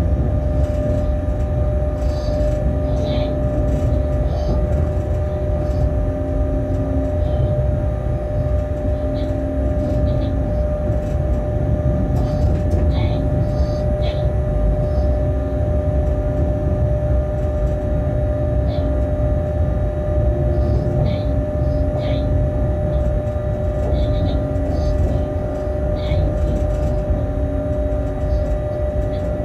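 Cab noise of a Bombardier Traxx BR 186 electric locomotive under way: a steady low rumble from the running gear with a steady electrical whine of several tones. Short humming tones come and go every couple of seconds, with brief high chirps now and then.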